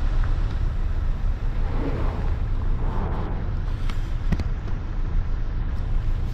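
Wind buffeting the microphone outdoors: a steady, choppy low rumble, with a brief click about four seconds in.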